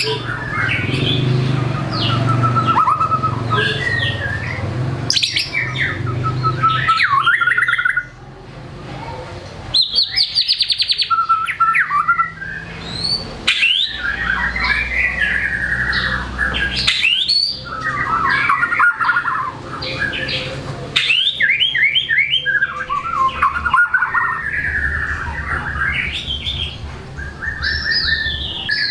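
White-rumped shama singing continuously in fast, varied phrases of whistles, chatters and rapid trills, a bird in full song running through its repertoire, with a short lull about eight seconds in.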